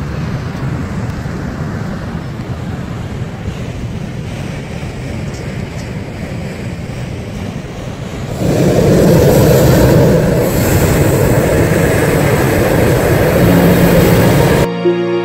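Hot-air balloon's propane burner firing: a steady rushing noise that about eight seconds in becomes a much louder, fuller blast, cut off abruptly near the end by music.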